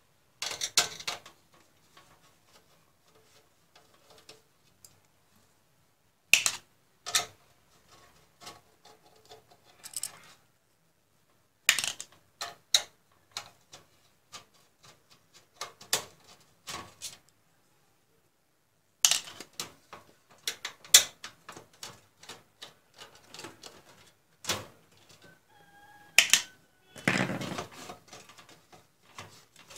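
A screwdriver taking out a computer power supply's mounting screws, then the metal PSU being worked loose in the steel case. Irregular bursts of clicks, ticks and metal clatter come with pauses between them, and a longer, louder scraping rattle near the end as the unit shifts inside the case.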